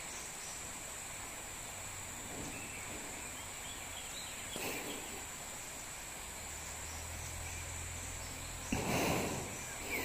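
Steady background hiss with a faint high-pitched whine, a brief soft sound about halfway, and a sudden louder sound lasting under a second near the end.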